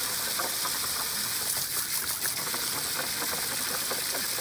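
Jet of water spraying and splashing onto a plastic water table, a steady hiss with small irregular splashes.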